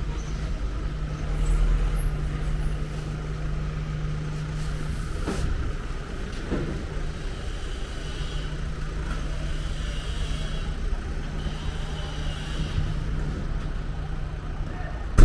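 Street traffic, with a vehicle engine running steadily close by as a low hum and rumble. The hum drops out for a couple of seconds around the middle, then returns.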